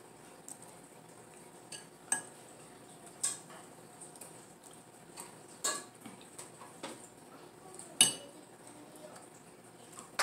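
A utensil clinking against a glass bowl: five or six sharp, separate clinks a second or two apart, the loudest about eight seconds in.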